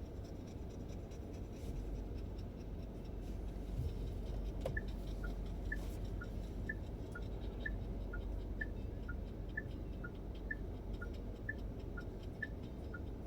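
Steady low rumble inside a moving car's cabin. About five seconds in, the car's turn-signal indicator starts its electronic tick-tock: short blips alternating between a higher and a lower tone, about two a second.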